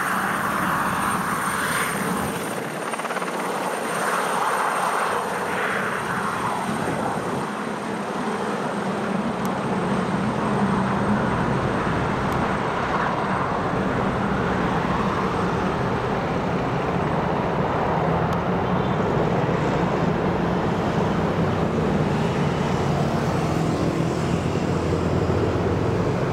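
Alouette II light helicopter, gas-turbine powered, running at takeoff power as it lifts off and climbs away: a steady mix of rotor and turbine noise, with a thin high whine clearest for the first several seconds.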